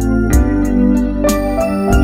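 Instrumental background music with regularly struck notes.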